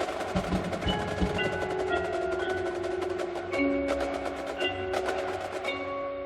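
Percussion music: held mallet-keyboard notes over a fast, even run of clicking strokes, with a change of chord about three and a half seconds in.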